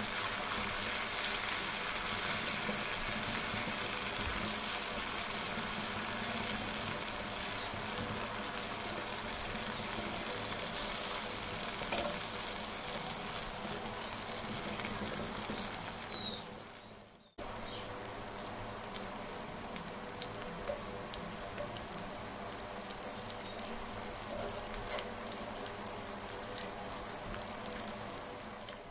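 Pressure-cooked taro pieces deep-frying in hot oil in a kadai, a steady sizzle. It breaks off for an instant about two-thirds through, then carries on.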